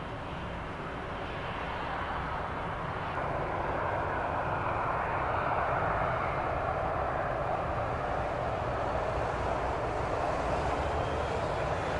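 Airbus A321 airliner's turbofan engines running, a steady rushing jet noise that grows gradually louder over the first half and then holds.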